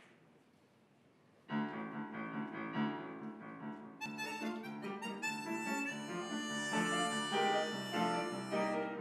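Upright piano begins an accompaniment about a second and a half in, and a harmonica comes in over it about four seconds in, playing a sustained melody.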